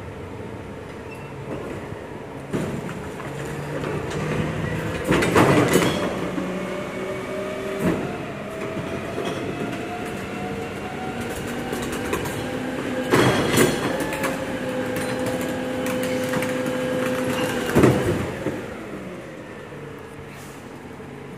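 Volvo FE 300 recycling truck's rear bin lifter hydraulically raising, tipping and lowering a wheeled bin: a whine that slowly rises in pitch, with loud metal clanks about five and thirteen seconds in and a last bang about eighteen seconds in.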